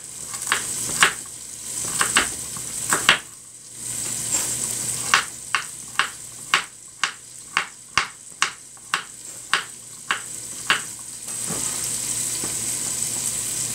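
Kitchen knife chopping carrots on a wooden cutting board, sharp knocks about three a second that stop about eleven seconds in. Chicken frying in a pot on the stove gives a steady sizzle underneath.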